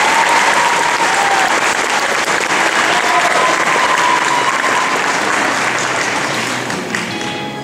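Audience applauding steadily, with a few voices calling out over the clapping; the applause thins out near the end.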